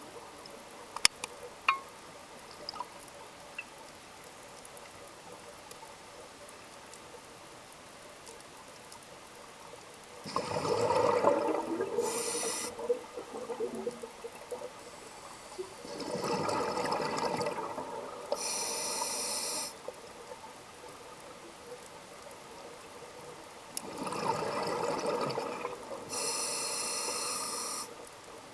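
Scuba diver breathing through a regulator underwater: three breaths about eight seconds apart, each a bubbly rumble of exhaled bubbles followed by the steady hiss of the inhale through the demand valve. A few faint clicks near the start.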